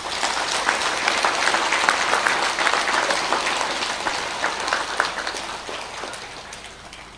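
Audience applause: many people clapping, swelling within the first second and then slowly dying away toward the end.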